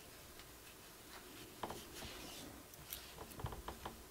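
Faint, irregular ticks and rustles of a metal crochet hook pulling acrylic yarn through stitches while double crochets are worked.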